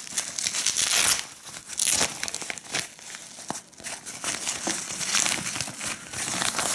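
Crinkling and rustling in irregular bursts as a shaver's black fabric carry bag is handled and opened, its white packing paper crackling inside.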